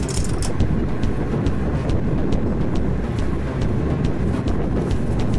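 The boat's engine running with a steady low rumble. A light ticking repeats over it about three times a second.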